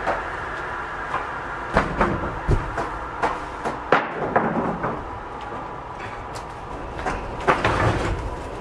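Board edger running with a steady machine hum, its electric saw motors spinning, while wooden boards knock and clatter against the steel table and frame at irregular intervals. The knocks come in a cluster about two to four seconds in and again near the end.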